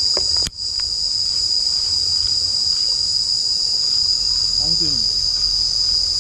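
Insects droning in a steady, high-pitched chorus, briefly cutting out about half a second in.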